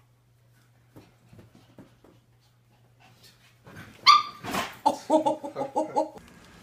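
A dog gives a sharp yelp about four seconds in, then a quick run of short whining yips, about six a second. Faint light taps come before it.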